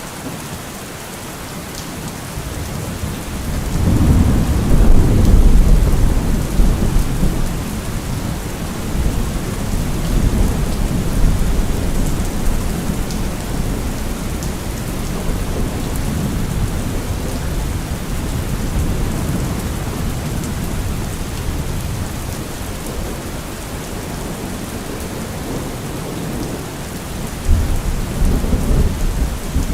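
Thunderstorm: steady heavy rain with rolling thunder. A long low rumble swells about three seconds in, is loudest around five seconds and rolls on for several seconds; another rumble comes near the end.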